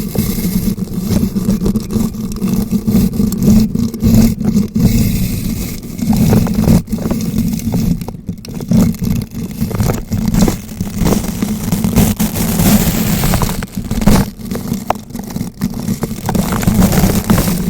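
A bristle brush rubbed and rotated directly against a bare microphone, giving a loud continuous scratching with a heavy low rumble and irregular crackles.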